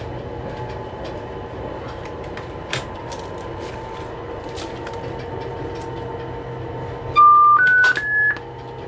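Steady hum inside a diesel locomotive's cab moving slowly, with scattered sharp clicks. About seven seconds in, a loud electronic chime sounds three short notes, each higher than the last.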